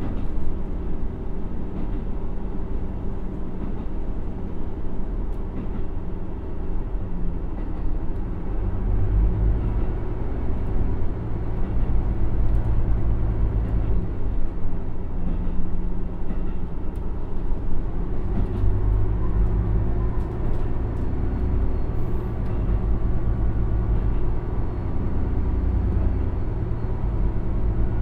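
Cummins NTA855-R1 diesel engine of a KiHa 75 railcar running under the floor, heard from inside the cabin directly above it, with wheel-and-rail noise as the train slows to about 44 km/h. The engine's low drone grows louder about nine seconds in.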